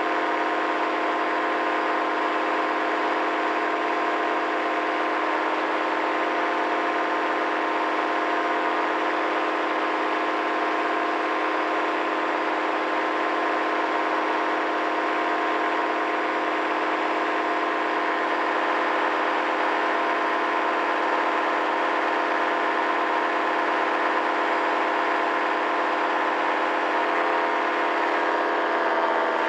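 Paramotor engine and propeller running steadily in flight, a constant drone at a steady pitch that drops slightly at the very end.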